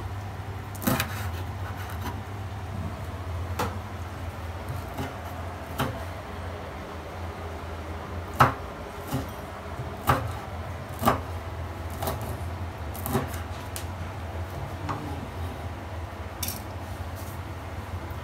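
Chef's knife chopping bird's eye chilies on a wooden cutting board: separate sharp knocks of the blade on the board, irregular and roughly a second apart, over a steady low hum.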